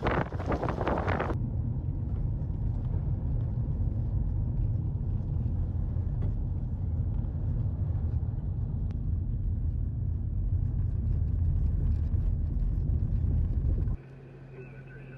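Steady low rumble of a car driving, heard from inside the vehicle, after a loud rushing noise in the first second or so. Near the end it cuts off suddenly to a quieter steady hum with a few held tones.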